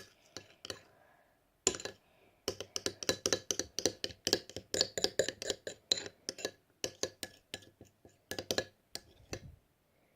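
Spoon stirring a thick mixture of shampoo and powder in a bowl, clinking and scraping against the bowl in quick repeated strokes, with short pauses about one and two seconds in.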